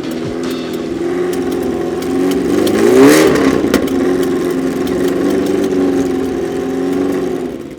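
Porsche sports car engine running at a steady idle, with one quick rev blip about three seconds in, then settling back to idle.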